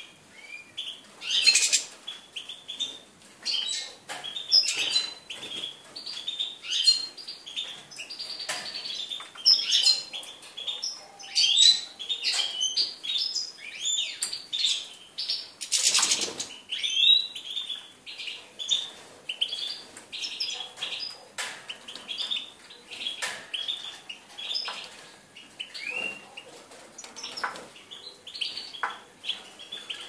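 European goldfinch singing in a cage: a continuous stream of quick, bright twittering chirps and trills. About halfway through there is a short, loud burst of wing flapping.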